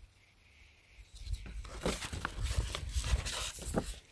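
Paper shoot-and-see target sheet being handled and rustled, with scattered crackles and low bumps from about a second and a half in.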